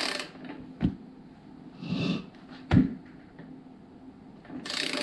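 Click-type torque wrench being pulled on beadlock ring bolts: a couple of sharp clicks, the loudest about three seconds in, which is the wrench breaking over at its set torque of 12 lb-ft. Short rustling noises come between the clicks.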